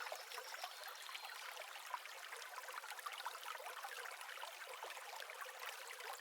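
Faint, steady trickle of flowing stream water, thin and crackly with no low end.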